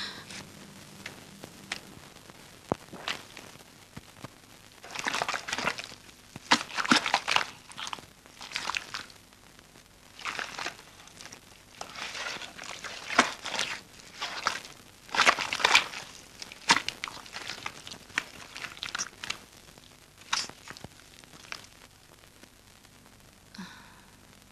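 Irregular rustling and crunching noises in clusters, with a few sharp clicks, most of them between about five and seventeen seconds in.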